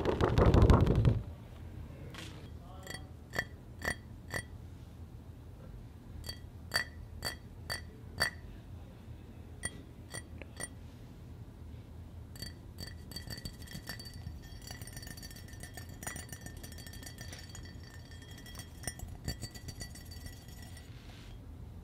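A loud rustle of handled paper in the first second. Then a spoon clinking against a ceramic mug: separate ringing clinks at first, then quick, steady clinking as it stirs inside the mug from about halfway.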